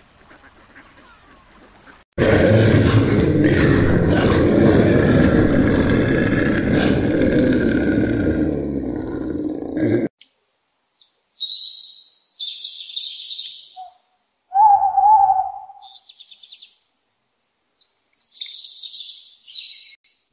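A loud, rough, dense noise starts about two seconds in and cuts off abruptly about eight seconds later. Then come scattered high bird chirps and one short, lower-pitched call in the middle of the otherwise quiet stretch.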